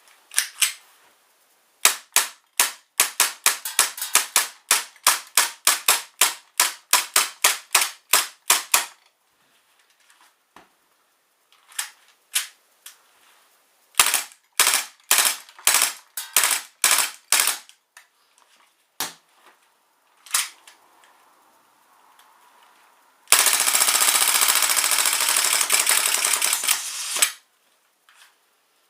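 KWA Beretta 93R gas blowback airsoft pistol firing: a long run of sharp shots at about three to four a second, then scattered single shots and a quicker cluster. Near the end comes a dense, continuous stretch of noise lasting about four seconds.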